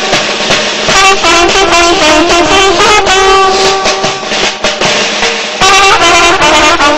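Ta'zieh battle music: brass horns sounding long, held notes over beaten drum strokes, loud throughout, dipping briefly after the middle and rising again near the end.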